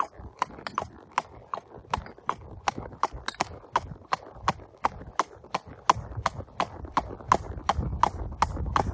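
Thoroughbred horse's hooves clip-clopping at a walk on a wet tarmac road, an even beat of about three to four sharp clicks a second. A low rumble swells over the last few seconds.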